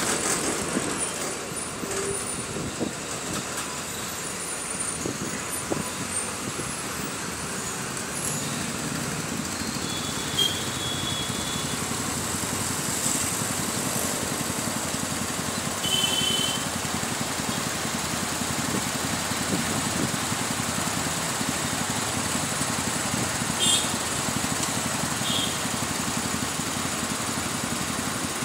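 Steady rumble of a bus engine and road and traffic noise, heard from inside a moving city bus. A few brief high tones stand out about ten, sixteen and twenty-four seconds in.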